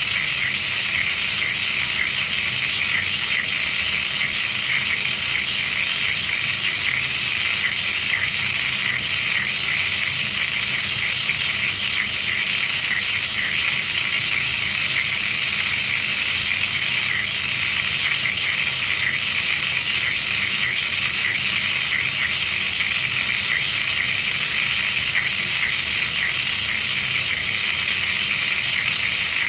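DIY sinker EDM (electrical discharge machine) with a 40 kHz pulse generator spark-eroding a workpiece: a loud, steady, high-pitched crackling hiss from the continuous sparking in the gap, with no breaks.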